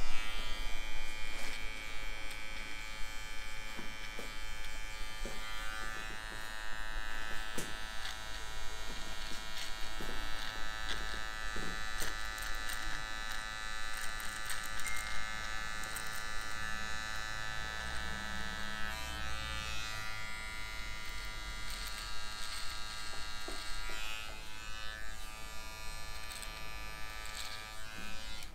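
Electric beard trimmer buzzing steadily as it is run over facial stubble, with scattered small clicks as the blade moves on the skin. The buzz stops right at the end.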